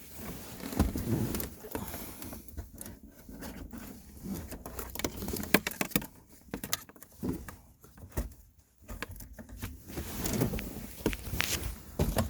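Irregular clicks, light knocks and rustling from hand tools and parts being handled while a car's shifter assembly is bolted into the center console.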